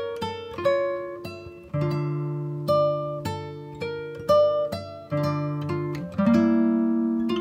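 Background music: an acoustic guitar picking notes and chords, each note ringing and fading.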